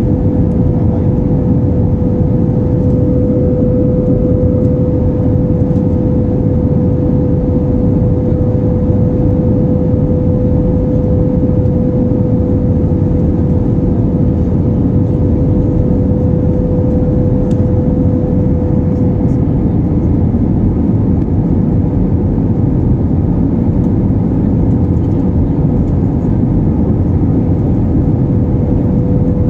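Steady jet-engine and airflow noise heard inside an airliner cabin in flight: an unbroken low rush with a steady tone held above it.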